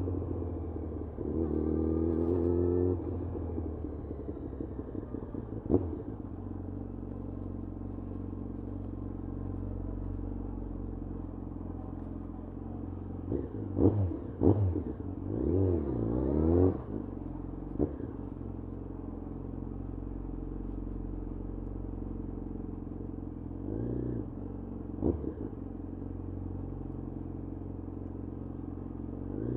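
Yamaha FZ1's inline-four engine running steadily at low revs, with quick rises and falls in revs about a second in, a longer cluster of revving in the middle and two brief ones near the end. A couple of sharp clicks cut through.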